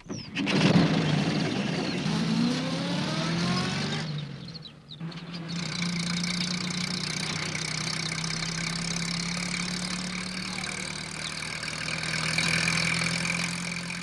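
Small van engine starting up and pulling away, its pitch rising as it revs. About four seconds in it briefly drops away, then it settles into running steadily.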